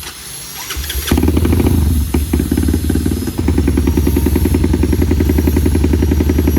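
Four-stroke trail motorcycle engine running with a quick, even exhaust beat, growing much louder about a second in and then settling into steady running.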